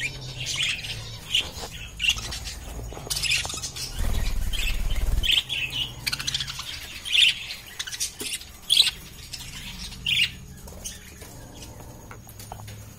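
A group of budgerigars chirping and chattering in short, high calls that come in quick, irregular succession. A brief low rumble sounds about four seconds in.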